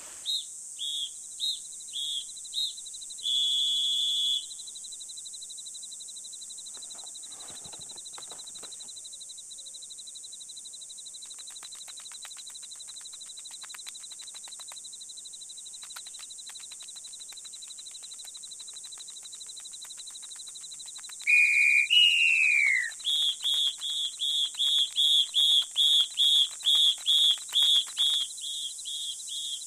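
Cartoon ant sounds: short, high whistle-like chirps over a steady high insect drone, with a held chirp early on replaced later by a falling whistle, then a fast even run of chirps about three a second as the ants march.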